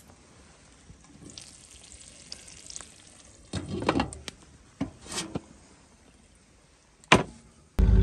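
Eggs sizzling faintly in a covered pan. A few clinks and knocks come from the pan lid being lifted about three and a half seconds in, with single knocks after. Just before the end, a vehicle engine cuts in loudly with a steady low hum.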